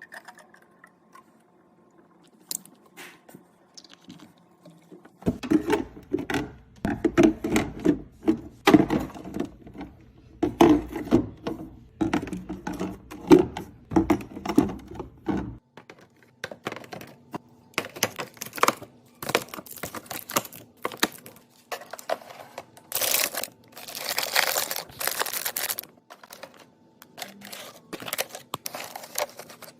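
Hands unpacking and loading a mini fridge: many clicks and knocks of cans and containers being set down, with tearing and crinkling of packaging. There is a heavier run of knocks in the first half and a longer rustling burst about three-quarters of the way in.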